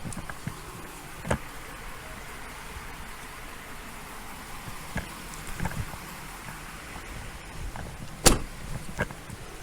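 Steady background noise with a few scattered sharp knocks and clicks; the loudest comes about eight seconds in.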